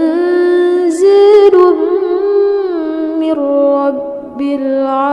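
A woman's voice chanting Quranic recitation (murattal), drawn out in long melodic held notes that glide slowly up and down, with a short breath about four seconds in.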